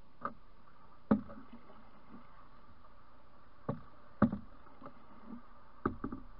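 Paddling a canoe: about six sharp knocks as the wooden paddle bumps the canoe's side during strokes. The loudest knocks come about one second and about four seconds in, with a close pair near the end, over a steady faint hiss.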